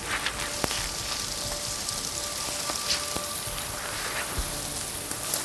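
Sleet falling on dry fallen leaves, a steady hiss, with a few sharp clicks as a backpack is handled close by.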